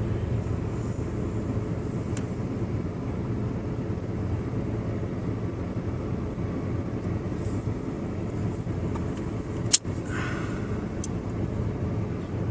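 Steady low hum of a running car with its air conditioning on, heard inside the cabin. A single sharp click comes near the end.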